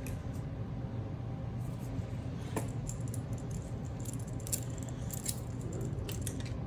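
Light metallic clinks and jingling as a stainless braided air hose and its metal fittings are handled and fitted to an ARB twin air compressor, with a steady low hum underneath.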